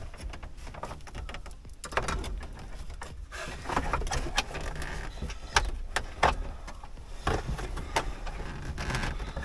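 Hands working wiring into a Jeep's dashboard: scattered light clicks, knocks and rustling of wire and plastic trim, over a low steady rumble.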